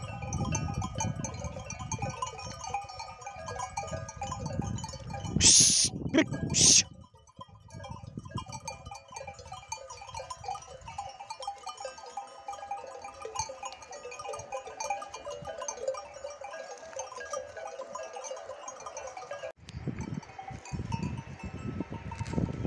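Sheep and goats of a grazing flock bleating, with two loud, brief sounds about five and a half and seven seconds in.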